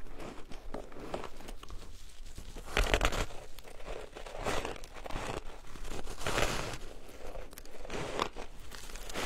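Close-up crunching of a person biting into and chewing a block of coloured shaved ice, a grainy crumbling crackle. The loudest bite comes about three seconds in, with more near the middle and end.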